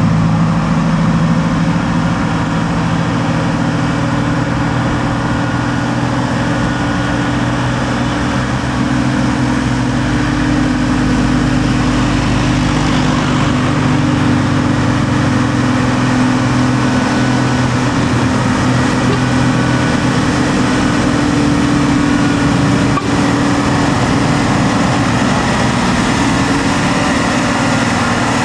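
Diesel engine of a loaded Hino 500 tandem-axle truck running at steady revs as the truck moves past.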